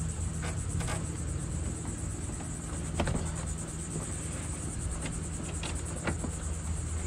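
Chevy C1500 pickup door trim panel being worked loose from the door by hand: a few short sharp clicks and snaps of its plastic clips, the loudest about three seconds in, over a steady low rumble.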